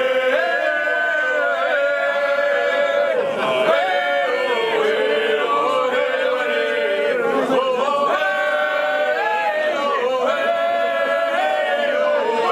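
Male vocal quartet singing a cappella in close harmony: long held chords whose voices slide from one note to the next.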